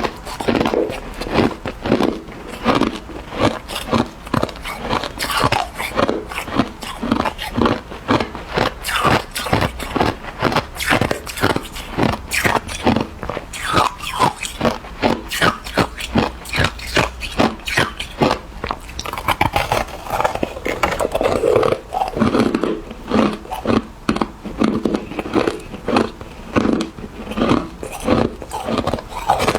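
Hard ice being bitten and chewed in the mouth: a steady run of crisp crunches, two or three a second.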